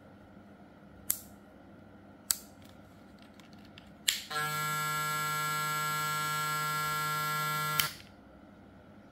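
TPOB Yeti hair clipper fitted with an XO blade: two sharp clicks, then it is switched on with a click and runs with a steady, even hum for about three and a half seconds before it is switched off with a click.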